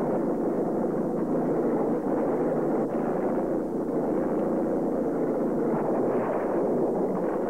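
Bulldozer engine running steadily as the machine pushes over a small house, a dense low rumble with no distinct crashes.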